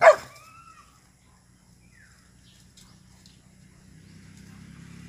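A protective mother dog barks once, loudly and sharply, right at the start; the bark trails off in a short whine. After that there are only faint scattered crackles and a low hum that grows toward the end.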